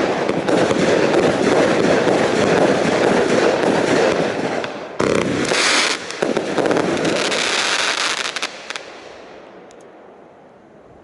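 Kimbolton Fanfare Royale 80-shot firework barrage cake firing its finale: a dense, continuous rapid-fire of bangs and crackle, with a sharper burst about five seconds in. The firing stops about eight seconds in and the crackle dies away.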